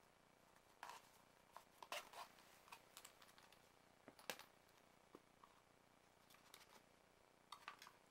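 Faint handling sounds of small packaging: scattered soft clicks and rustles as hands move a small pouch and earbuds on a table and lift a cardboard box.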